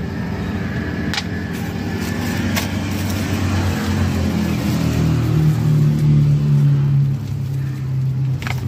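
An engine running steadily; its pitch climbs about four seconds in and drops back about seven seconds in. A few light clicks sound over it.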